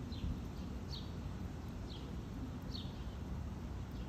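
A small bird chirping: short, falling chirps repeated about once a second, over a steady low rumble.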